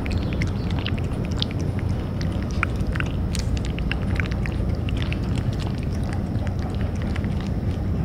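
Cat chewing food: a quick, irregular run of small clicks over a steady low background rumble.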